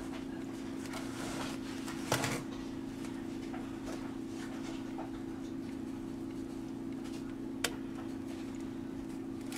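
Silicone spatula spreading thick cake batter in a metal baking pan: soft scraping and dabbing, with a knock about two seconds in and a sharp click later on. A steady low hum underneath.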